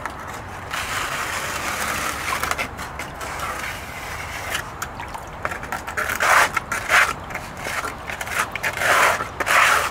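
A plastic scraper scraping wet magnetite concentrate along a stainless steel sluice into a plastic gold pan, in repeated strokes that grow louder in the second half.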